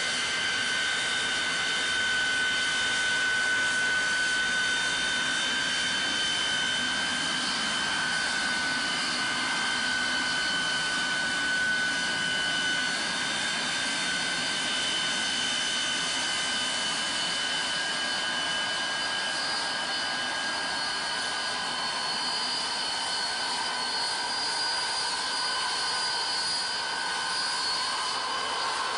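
Self-propelled railway snow blower running while it clears the tracks, its engine and blower giving a steady, high-pitched whine.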